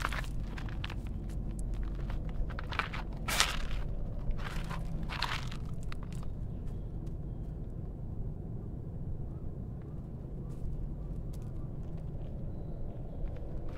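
Footsteps crunching on dry ground, several close together in the first six seconds and then only a few, over a steady low rumble.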